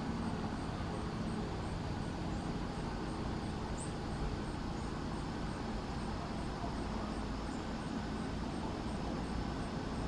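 Steady outdoor background noise, mostly a low rumble, with a faint high ticking about twice a second. A single brief high chirp comes about four seconds in.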